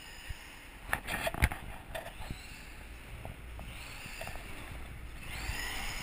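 1/10-scale 4WD Surge RC truck's electric motor whining, rising and falling in pitch as the truck speeds away over concrete. A few sharp clicks and knocks come about one to two seconds in.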